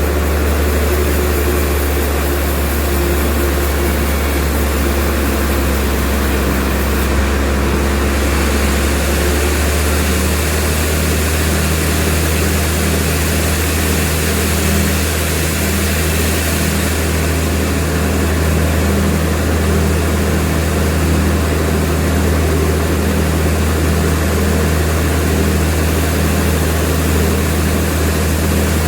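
Sawmill machinery running with a steady, loud, low engine drone; its tone shifts about ten seconds in.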